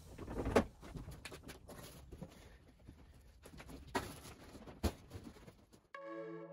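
A pickup truck's front door being handled and moved off the cab: scattered metal clunks and knocks, the loudest about half a second in and two more near the end. Background music starts suddenly in the last half second.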